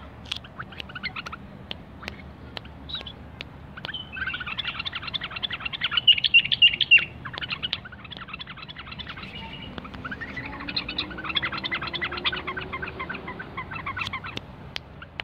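A caged bulbul chattering in rapid runs of short, high notes: a brief burst at first, then two long runs, the first the loudest. A few sharp clicks come near the end.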